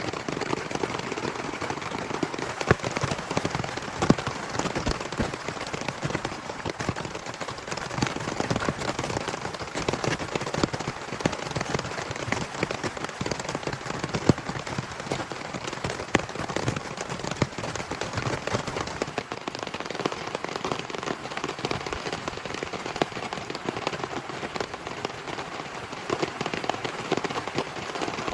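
Heavy rain falling steadily, with many separate drops striking close by as sharp clicks through the downpour.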